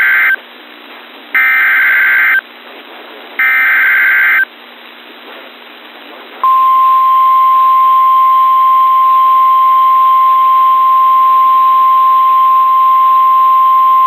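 NOAA Weather Radio emergency alert opening: the last two of three short, harsh, buzzing SAME data-header bursts, each about a second long and about a second apart. After a short gap, about six seconds in, the steady single-pitch 1050 Hz warning alarm tone starts and holds without change.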